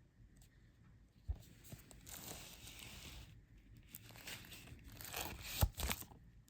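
Plastic shrink-wrap being torn and crinkled off a Blu-ray case: a bump about a second in, then two stretches of tearing and crinkling, with a few sharp clicks near the end.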